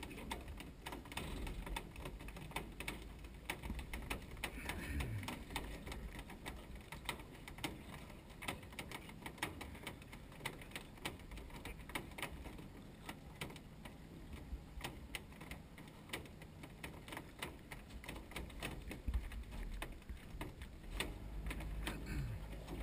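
Irregular light clicks and taps over a low rumble: choppy water slapping against an aluminium boat hull, with wind on the microphone.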